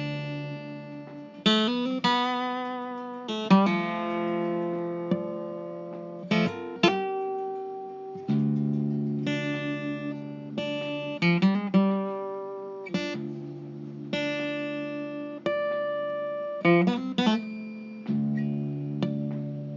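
Solo guitar music: chords struck and left to ring out, a new chord every second or two.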